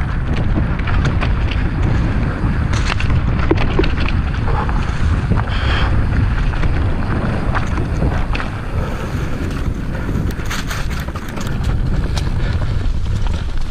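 Wind buffeting the microphone of a mountain bike's action camera as it rolls along a dirt trail covered in dry leaves, with frequent clicks and rattles from the bike and the trail.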